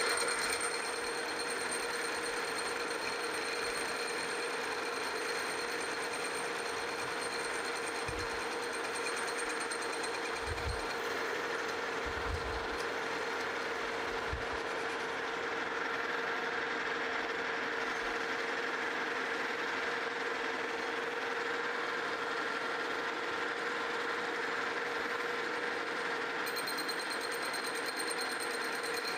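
Metal lathe running steadily while the tool takes a light facing cut across a cast iron wheel: an even whir with a steady hum. A few soft low thumps come in the middle.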